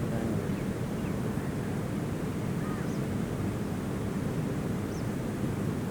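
Steady outdoor background noise with a low rumble, and a few faint, short, high chirps.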